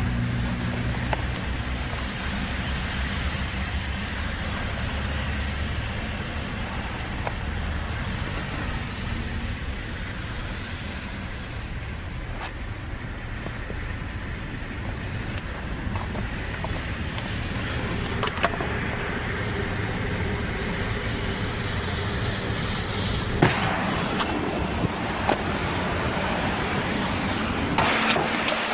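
Car engine and road noise heard from inside the cabin of a moving car: a steady low hum with road rumble. A few short sharp knocks come in the second half.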